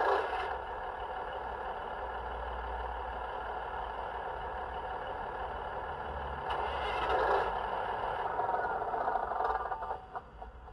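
A DCC sound decoder in a model train plays a Class 150 DMU's diesel engine, just warm-started and idling steadily. It swells briefly about seven seconds in and fades near the end.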